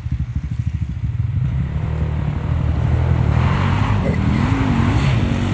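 Dirt bike engine pulling at low revs, its exhaust pulses growing steadily louder as it approaches. Near the end the revs rise and fall with the throttle.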